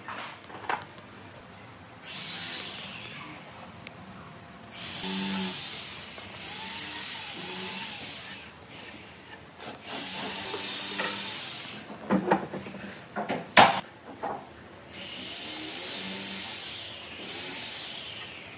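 A woodworking tool worked over wood in four strokes of two to four seconds each, hissing, with a few sharp knocks about twelve to fourteen seconds in.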